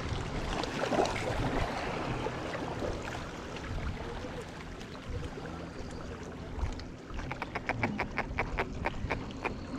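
Steady outdoor water and wind noise. In the last two to three seconds there is a quick, even run of clicks, about four or five a second.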